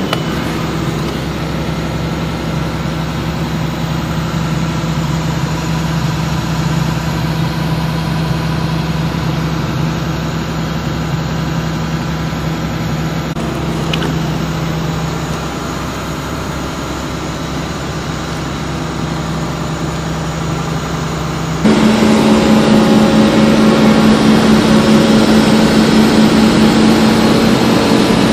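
Excavator with a RaMeC pile-driving head running steadily, its diesel engine and hydraulics giving a constant low hum. About three-quarters of the way through the sound jumps suddenly to a louder, higher-pitched hum while the head handles a steel pile.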